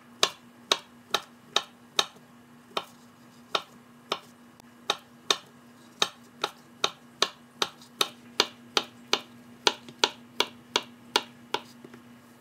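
Kitchen knife slicing a peeled banana on a paper plate. Each cut ends in a sharp tap of the blade on the plate against the countertop, about two to three taps a second in an uneven rhythm. A faint steady hum sits underneath.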